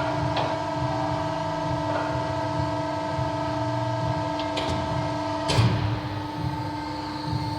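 Beyeler hydraulic CNC press brake running with a steady hum of several held tones over a low rumble, and a single sharp knock about three quarters of the way through.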